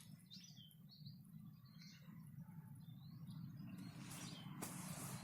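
Faint small birds chirping in short, high calls. From about four seconds in, a rustling noise rises and covers them.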